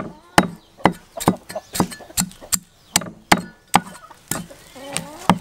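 Cleaver chopping through a whole red sea fish onto a wooden chopping block: steady sharp chops, about two a second, the last few more spaced out.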